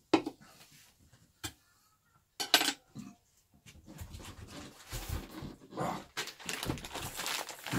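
A drink can set down on a wooden shelf with a knock, then a clatter and knocks as things are rummaged through beside the desk, turning into steady rustling with small knocks and clinks from about four seconds in.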